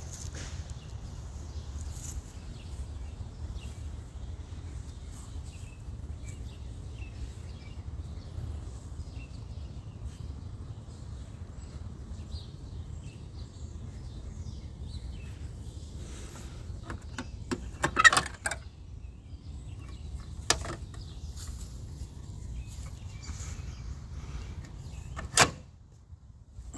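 Outdoor background noise: a steady low rumble, with a quick cluster of clicks and knocks about 17 to 18 seconds in, then a single sharp click about 20 seconds in and a louder one about 25 seconds in.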